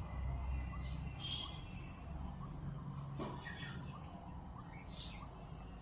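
Faint outdoor ambience: scattered short bird-like chirps and falling whistles over a steady low rumble.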